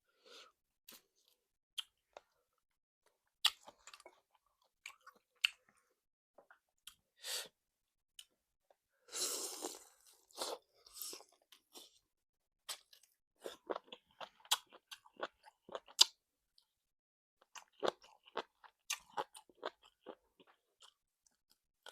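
Close-miked chewing and biting of salt-baked chicken: wet mouth sounds with scattered crisp crunches and clicks, and one longer, louder burst of noise about nine seconds in.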